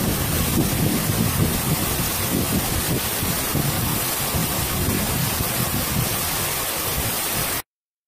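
Waterfall pouring over rock into its plunge pool at close range: a steady rush of falling and splashing water, heaviest in the deep end, which cuts off abruptly near the end.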